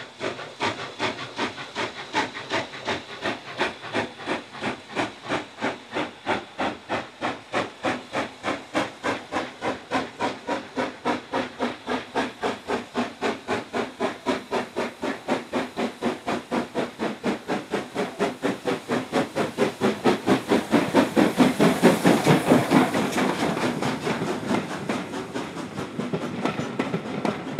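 Southern Railway N15 'King Arthur' class steam locomotive 30777 pulling away with its train, its exhaust beating in a steady, even rhythm over the hiss of steam from the open cylinder drain cocks. The beats are loudest as the engine passes close about twenty seconds in, and near the end the coaches roll by.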